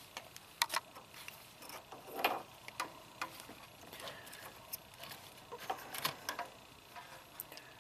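Faint, scattered small clicks and taps of a test light's metal probe against the pins of an unplugged cooling fan wiring connector as it is probed for power, with a short scrape a little over two seconds in.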